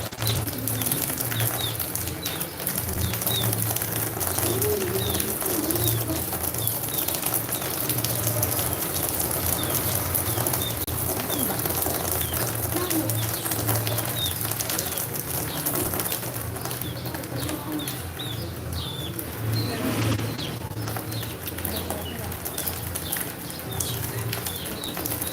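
Birds chirping: short high chirps repeating every second or so over a steady low hum.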